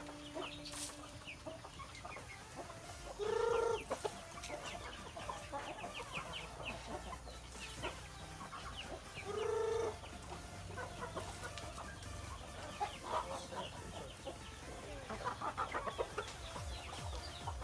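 A flock of chickens clucking and calling while they feed, with two louder, drawn-out single calls about three and nine seconds in.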